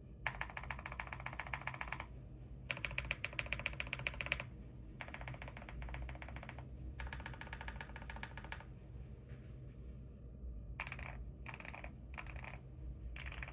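GMK67 mechanical keyboard with lubed Akko Silver linear switches and PBT Cherry-profile keycaps being typed on: four runs of fast keystrokes of a second and a half to two seconds each, then shorter bursts of a few keys each in the last few seconds.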